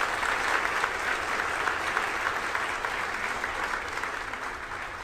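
A group of people applauding, greeting a successful first-stage cutoff and stage separation of the Electron rocket. The clapping thins and fades out near the end.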